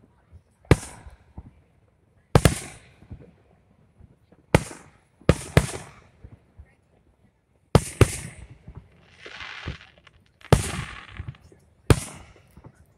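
Aerial firework shells bursting overhead: about eight sharp booms at irregular intervals, two of them in quick succession, each trailing off in an echo.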